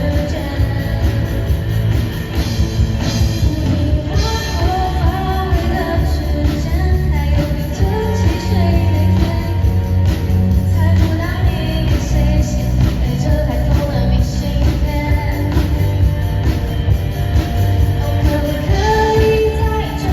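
A band playing a pop-rock song with a singer, steady drums, bass and guitar, picked up in a large hall.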